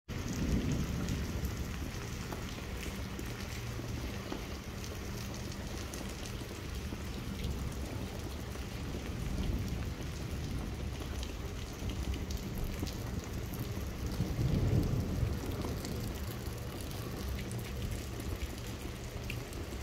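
Steady rain falling on wet streets and pavement, with low rumbles of thunder; the loudest rumble swells about three quarters of the way through.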